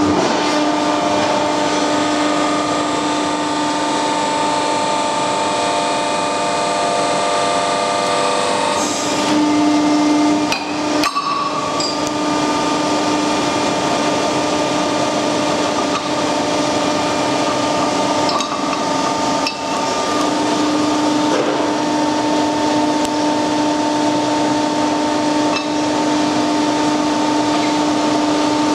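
Factory press machinery running steadily, a constant hum at several pitches, with a few sharp metal knocks, the loudest about eleven seconds in.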